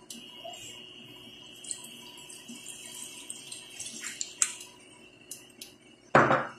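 Fish sauce poured from a bottle into a large pot of pork pieces, a thin trickle with a few small clicks. A short, louder thump comes near the end.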